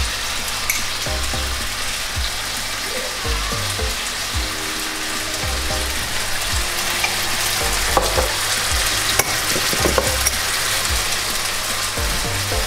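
Vegetables and tomatoes frying in hot oil in a wok, with a steady sizzle and a few sharp clicks in the second half.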